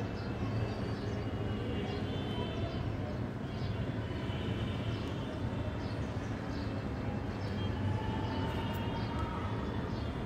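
A steady low rumble of background noise, with a faint high whine and faint, irregular high chirps every second or so.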